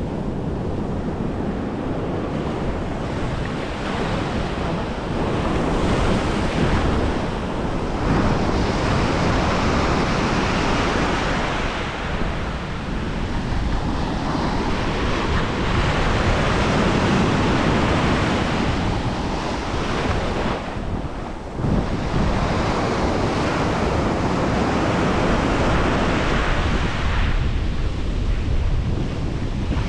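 Ocean surf breaking and washing up a sandy beach, swelling and ebbing every several seconds, with wind buffeting the microphone.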